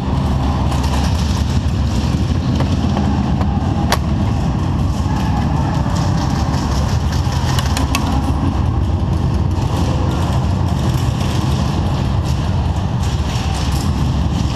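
A steady, low, engine-like drone runs throughout, with a few sharp clicks over it, the clearest about four and eight seconds in.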